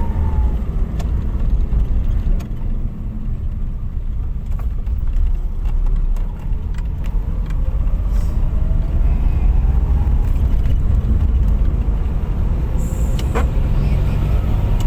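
A car driving along a road: a steady low engine and road rumble, with a faint rising whine about six to ten seconds in as it picks up speed.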